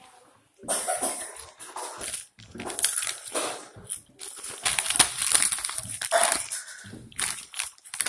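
Crinkly plastic chip bag rustling and crackling in irregular bursts as a hand rummages inside it, close up.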